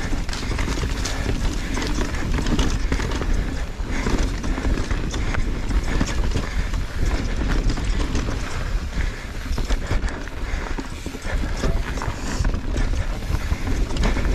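Mountain bike riding fast down a dirt singletrack: steady tyre noise with a constant clatter of quick knocks and rattles as the bike runs over bumps and roots.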